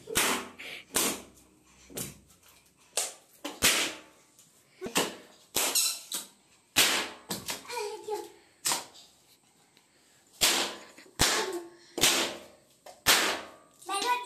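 Small air balloons bursting under bare feet as they are stamped on, one sharp pop after another at irregular intervals, well over a dozen in all.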